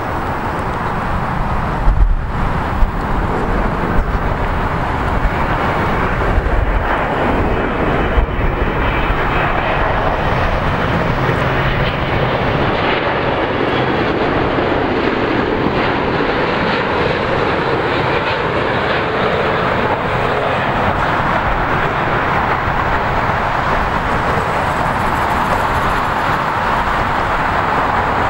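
Air France Boeing 777 on landing approach passing low overhead: steady jet engine noise that swells and holds, with a tone that drops in pitch as the airliner goes by. A few low bumps of wind on the microphone in the first several seconds.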